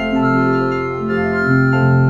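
Electronically processed music of held organ-like keyboard chords that shift to new notes a few times and grow louder about one and a half seconds in.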